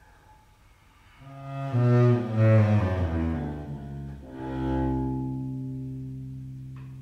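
Solo cello: after a near-silent pause, bowed notes swell up about a second in and move through a short loud passage, then a long low note is held and slowly fades away.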